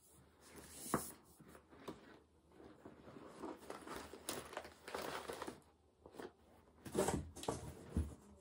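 Rustling and crinkling as a cross-stitch project and its wrappings are handled and sorted, with a sharp click about a second in and a few louder knocks near the end.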